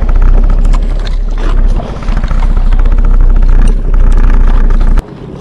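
Loud, steady low rumble of a small outrigger fishing boat under way with its engine running. The sound drops away abruptly near the end.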